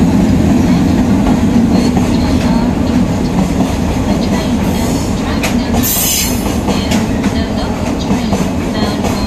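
Container freight train passing close by, its wagons rolling over the rails with a steady rumble and wheel clatter. There is a brief high hiss about six seconds in.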